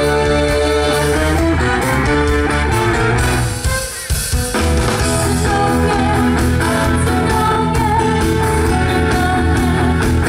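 Instrumental break of a Thai pop song: band music with a steady beat and no singing. The band drops out briefly about four seconds in, then comes back.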